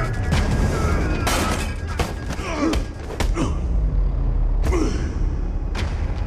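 Film fight sound effects: a series of heavy blows landing about a second apart, mixed with short grunts, over a steady low rumble of dramatic score.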